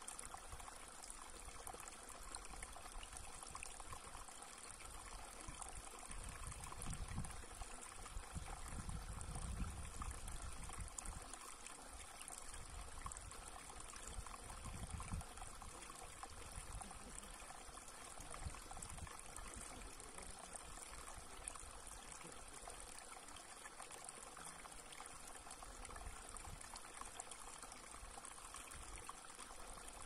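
Shallow stream of water trickling over a flat rock ledge and pouring into a still pool, steady and faint. A few low rumbles rise under it about seven to ten seconds in and again near fifteen seconds.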